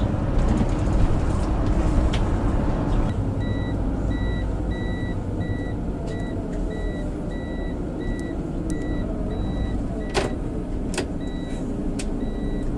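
Bus engine running with a steady low rumble. From about three seconds in, a high electronic warning beep repeats about twice a second, stops briefly near the end and then starts again. A few sharp clicks are heard near the end.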